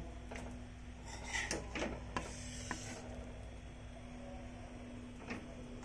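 A plate of food being handled: a few faint clicks and short scrapes, mostly in the first three seconds, over a steady low hum.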